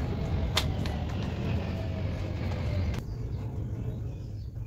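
A single sharp snap from a homemade paper rifle's action about half a second in, over a steady low rumble. The background drops abruptly about three seconds in.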